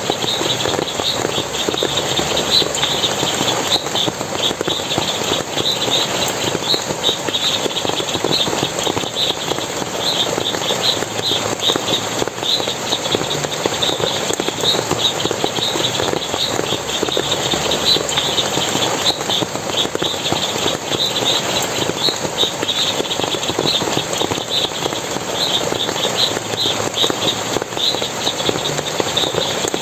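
Forest water splashing and rushing steadily, with quick high-pitched chirps repeating several times a second on top.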